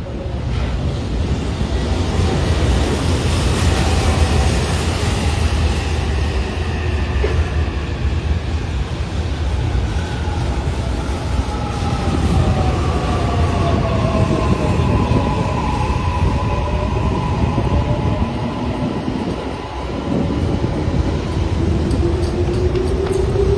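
Electric train running on the rails: a steady low rumble of wheels and running gear, with a motor whine that slides down in pitch through the middle and rises again near the end.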